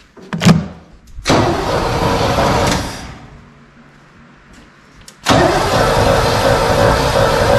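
Starter motor cranking the 1976 Chevy K20's 350 small-block V8, worked from a remote starter switch, with the ignition unpowered so the engine does not fire. A short clunk about half a second in, a burst of cranking for about two seconds, then cranking again from about five seconds in. It makes a really bad noise that does not sound happy, which the owners suspect may be the clutch.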